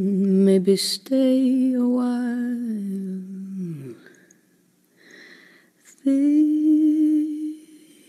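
Slow music made of long, held, wavering melody notes. One phrase slides down in pitch and fades about halfway through, and after a short pause another long note begins.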